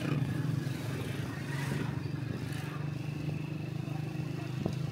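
Motorbike engine running steadily under the rider while riding along a street. A short click sounds near the end.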